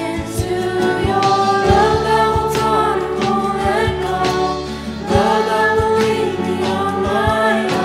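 Three female voices singing together in held notes over instrumental accompaniment with light percussive hits.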